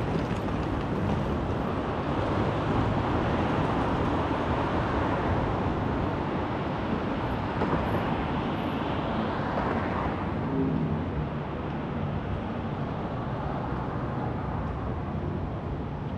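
City traffic and road noise from driving through busy streets: a steady rush of tyres and engines that swells for a while, then eases off a little about ten seconds in.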